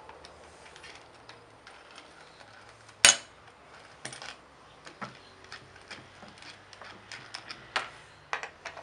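Clicks and metallic clinks of a plastic blade guard and its clamp being fitted to a brush cutter's aluminium shaft, with a hand tool working the clamp bolt. One sharp knock about three seconds in, and a run of quick clicks near the end.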